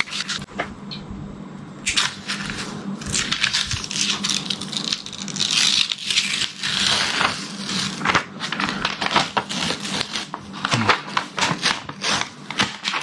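Tablet packaging being handled and pulled open by hand: rustling, scraping and crackling with many small clicks.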